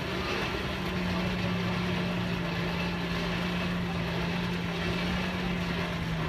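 Hand-cranked forge blower whirring at a steady pitch as it is turned, blowing air into the fire.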